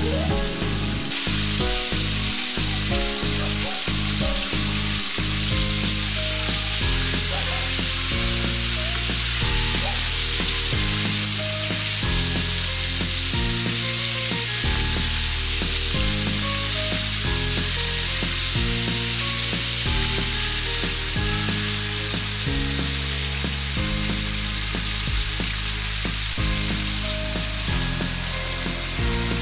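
Battered chicken pieces deep-frying in oil at about 157 °C: a steady hiss and crackle of sizzling oil, under background music with a stepping bass line.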